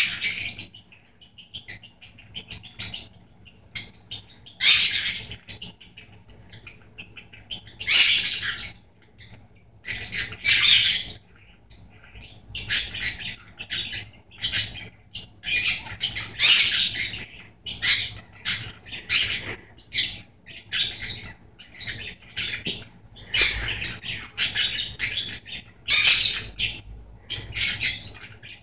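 A male budgerigar chattering at his toy in courtship: a continuous run of short, scratchy, high chirps and warbles, with a few louder calls scattered throughout.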